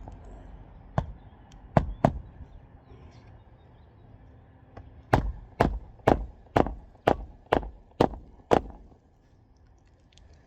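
Hammer driving a roofing nail by hand through an asphalt shingle: three separate strikes in the first two seconds, then a steady run of eight blows about two a second.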